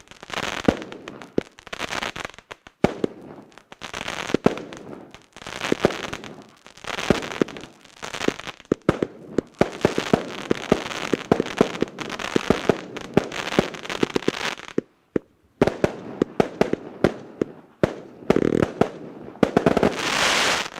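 120-shot, 0.8-inch (20 mm) fireworks cake firing: rapid shots and bursts in waves with short gaps, busiest in the middle, with a final loud volley that cuts off suddenly at the end.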